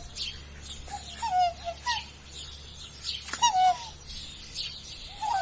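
Birds calling: four short, pitched calls that slide down and waver, spread over a few seconds, with quicker high chirps between them.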